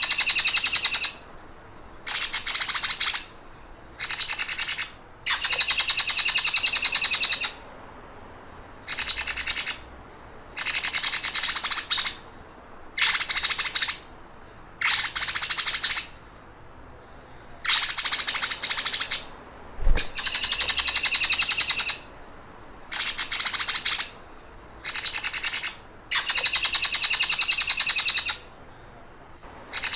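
A songbird giving rapid, buzzing trills like a running sewing machine, each one to two seconds long, repeated over and over with short gaps: a bird-training 'masteran' song.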